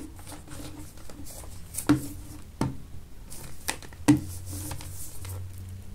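Hands handling a small plastic-wrapped cardboard box: light knocks and rustling as it is turned over and set against the table, with four short knocks standing out.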